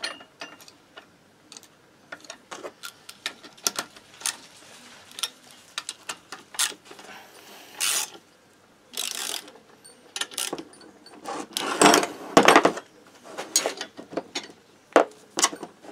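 Socket ratchet clicking in short irregular runs as it turns the forcing screw of a jaw-type bearing puller, drawing a main bearing off a moped two-stroke engine's crankshaft. A few longer, louder rasps come through, the loudest about three-quarters of the way in.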